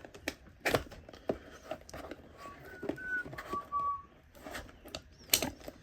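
Cardboard card box being opened and handled: sharp clicks, rustles and tearing, the loudest a snap about five seconds in. In the middle come a few short, steady, high whistled notes at two alternating pitches.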